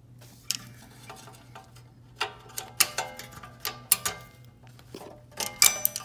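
Irregular metallic clicks and clinks of a steel exhaust-valve cable and its wire retaining clip being worked loose by hand and slid out against the exhaust pipe and bracket. Some clicks ring briefly, and they come thickest in the middle and near the end.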